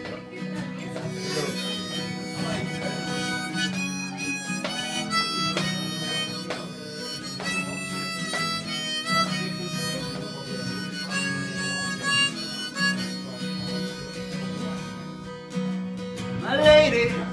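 Harmonica in a neck rack playing a melody over strummed acoustic guitar, with a louder wavering, bending note near the end.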